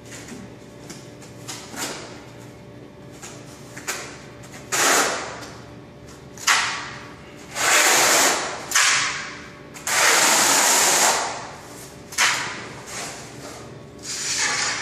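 Steel notched trowel scraping thin-set mortar across a bare subfloor in a series of about seven sweeps, each roughly half a second to a second long.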